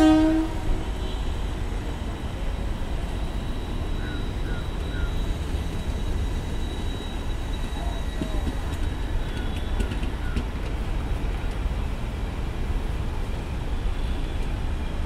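Passenger coaches of an express train rolling slowly past along the platform: a steady low rumble of wheels on rail, with a few faint squeals. A train horn note cuts off right at the start.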